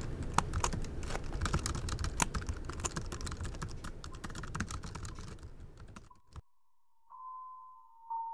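Rapid typing on a ThinkPad T430 laptop keyboard, a dense irregular clatter of keystrokes that thins and fades over about six seconds and ends with one sharp key tap. A soft held musical tone starts about seven seconds in.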